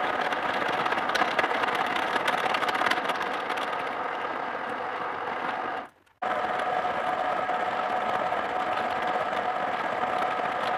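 Milling machine cutting gear teeth into a metal gear blank with a disc cutter: the spindle runs steadily under a constant scraping cut noise. The sound drops out for a moment about six seconds in and then goes on with a steadier hum.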